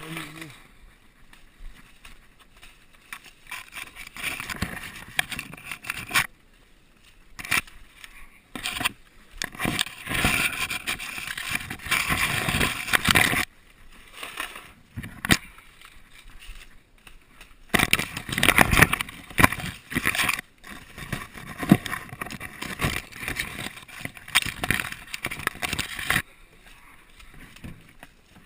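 Irregular rustling, scraping and crackling close to the microphone, with sharp clicks, coming in loud spells with quieter gaps: grapes being hand-picked among vine leaves.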